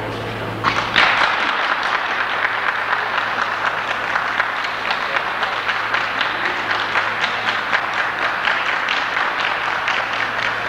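Ringside audience applauding steadily, with many hands clapping at once; the clapping swells about a second in.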